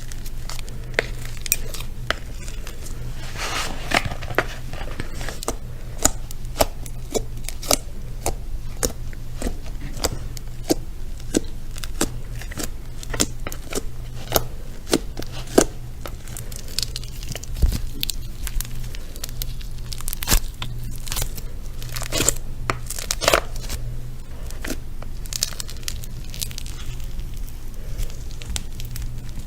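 Crinkling and rustling, like paper or plastic being handled, with many sharp irregular crackles and clicks, over a steady low hum.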